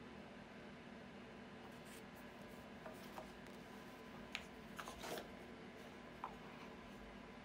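Quiet handling of a paperback guidebook and a cardboard card box on a marble tabletop: a few faint taps, the loudest a short cluster of taps with a brief rustle about five seconds in, over a steady low hum.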